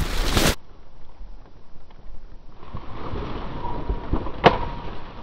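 A loud rush of noise cuts off abruptly half a second in, leaving wind rumble on the microphone. About halfway through, a soft rushing builds as a large flock of mallards circles low overhead: the sound of their wings. A single sharp click comes near the end.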